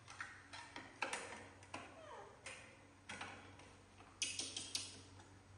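Light clicks and knocks of plastic plates and food being handled on a small wooden table, with a quick cluster of clatter about four seconds in. A baby monkey gives a short falling squeak a little after one second and again after two.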